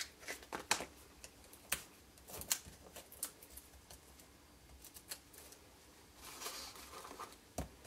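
Hands handling card and a new pack of foam adhesive dimensionals on a work mat: quiet scattered clicks and taps, a soft rustle about six seconds in, and a sharper tap near the end.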